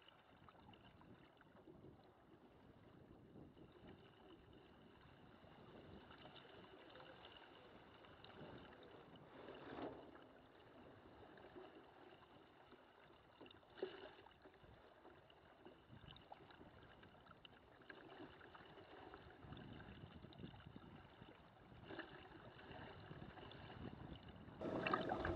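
Faint water sloshing and splashing against the hull of a small sailing trimaran under way in choppy water, with two louder splashes about ten and fourteen seconds in.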